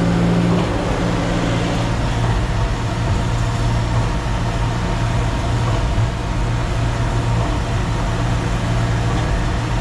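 Concrete mixer truck's diesel engine running steadily, a constant low drone.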